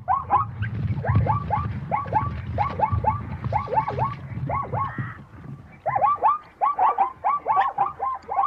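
Zebra calling: a quick series of short, yelping barks, about three or four a second, in runs with brief pauses between them. A low rumble sits under the calls until about six seconds in.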